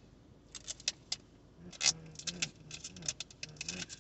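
Small hard objects being handled inside a car: a run of light, irregular clicks and rattles, the loudest about two seconds in, with a brief low "mm-hmm" underneath.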